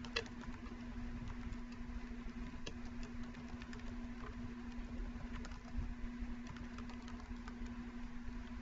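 A steady low electrical hum with faint, scattered computer keyboard clicks as text is typed into a form.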